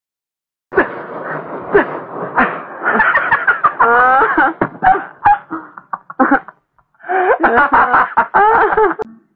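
Hearty human laughter in quick, pulsing bursts, in two long stretches with a short break in the middle.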